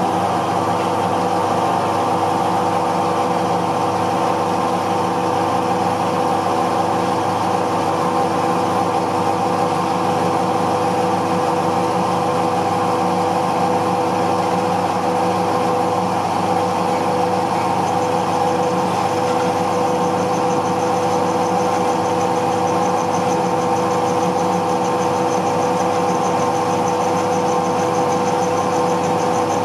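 Metal lathe running with a steady hum of motor and gears, several fixed pitches held level. It is spinning a workpiece clamped in its chuck for turning, and a faint high hiss joins about two-thirds of the way in.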